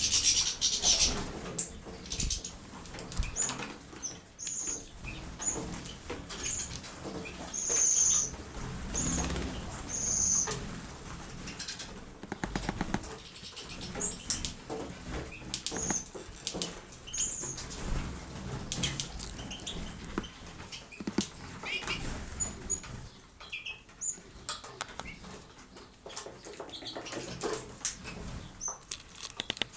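Small pet birds bathing: repeated bursts of wing fluttering and splashing in water, with short high chirps, most of them in the first third.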